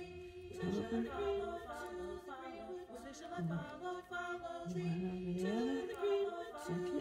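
Background music of unaccompanied voices singing together, with several sung lines changing note throughout.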